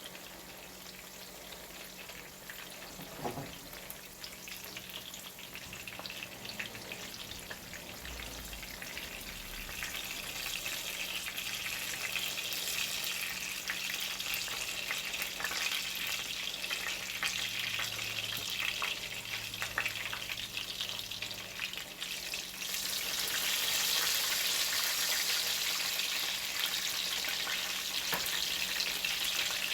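Zucchini frying in oil in a pan with a steady crackling sizzle. The sizzle grows louder about a third of the way in and steps up again about two-thirds of the way through.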